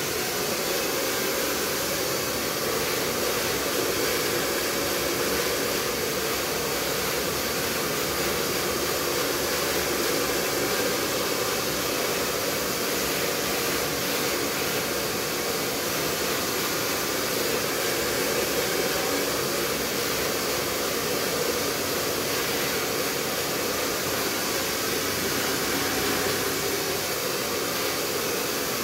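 Handheld hair dryer running steadily, blowing over a customer's freshly cut short hair.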